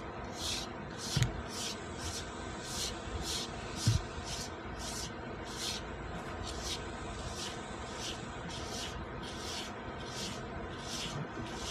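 Rhythmic scraping of a rigid, jagged shedding tool raked through a Cane Corso's coat, about two strokes a second, over a faint steady hum. A couple of soft thumps come about one and four seconds in.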